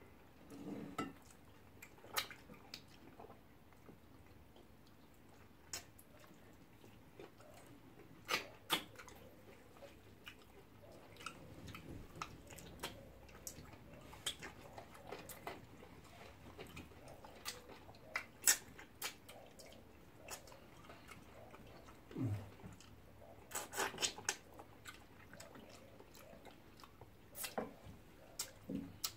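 Close-up wet mouth sounds of two people eating by hand: scattered lip smacks, chewing and sharp clicks of sucking food off their fingers, irregular and spaced out.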